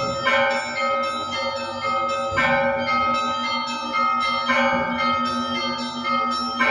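Russian Orthodox church bells ringing: a heavy low bell struck about every two seconds, with smaller bells chiming in between and every tone ringing on into the next.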